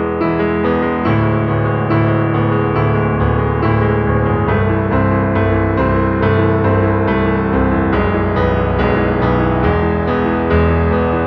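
Background music: a piano or electric-piano tune with sustained bass notes and a steady, regular run of notes.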